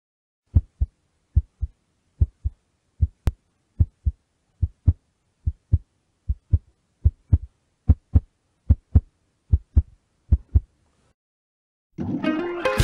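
Heartbeat sound effect: paired low thumps, lub-dub, at about 73 beats a minute, stopping about ten and a half seconds in. Guitar music starts near the end.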